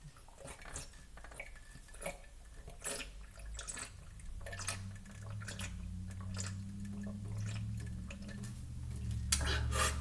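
Water gulped, slurped and dripping as a person drinks from the far rim of a cup (the 'reverse drink' hiccup remedy), with sharp little clicks and splashes throughout. A low steady hum comes in about halfway and grows louder.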